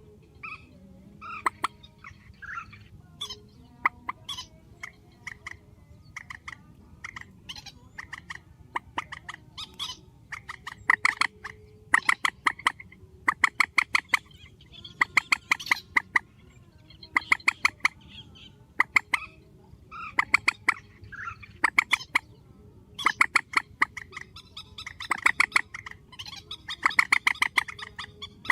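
Swamphen calling in runs of fast, sharp clucking notes, a run every second or two. The runs are faint at first and become louder and more frequent from about ten seconds in.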